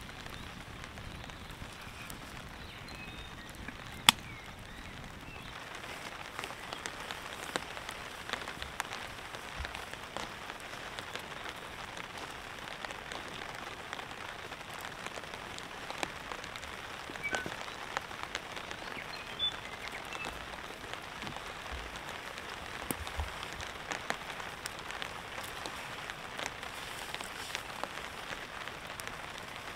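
Rain falling on a tarp overhead, with individual drops ticking; the rain gets heavier about five seconds in. One sharp click stands out about four seconds in.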